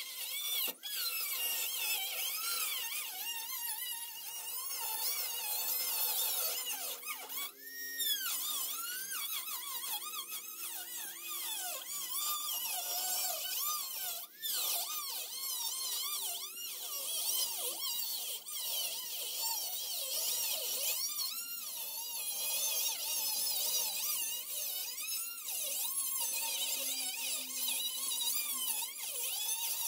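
Small high-speed cut-off tool whining as its abrasive wheel cuts through a rusted steel floor pan, the pitch repeatedly dipping and recovering as the wheel bites into the metal and eases off.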